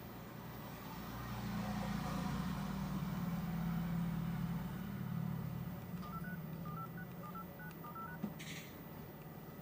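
A mobile phone sounding a quick run of about a dozen short electronic beeps at changing pitches, like keypad dialing tones, over a low hum that swells and fades in the first half. A brief hiss follows near the end.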